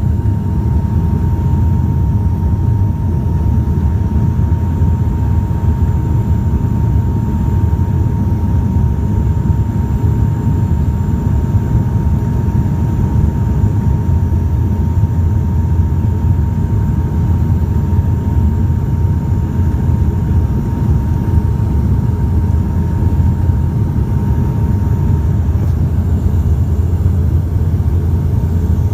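Steady propeller and engine drone of a Bombardier Dash 8 turboprop heard from inside the cabin, a dense low hum with a thin steady whine on top that fades out near the end.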